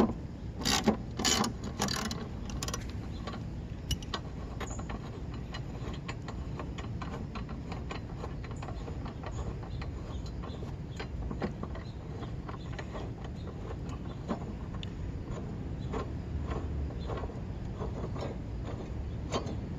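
Socket ratchet clicking in irregular runs as the mower's blade bolt is slowly backed out. The clicks are louder and come thicker in the first few seconds.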